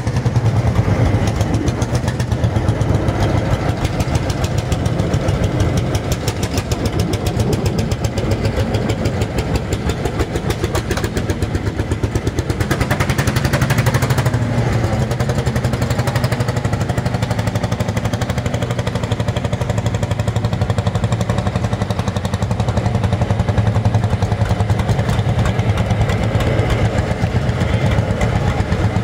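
Lanz Bulldog tractor's single-cylinder two-stroke hot-bulb engine running steadily, its firing strokes coming as a fast, even thudding beat.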